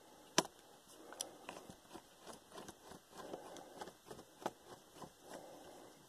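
Small Phillips screwdriver turning out a keyboard retaining screw on a Dell Latitude D630 laptop: faint, scattered metal clicks with soft scraping between them.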